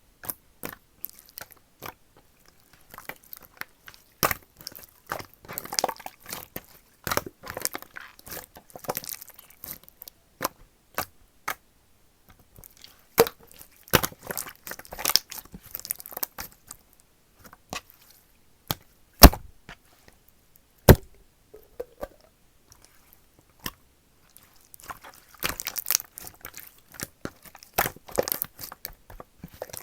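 Slime being pressed and stretched by hand, giving off irregular sharp pops and clicks in crackly clusters, with a few louder single pops.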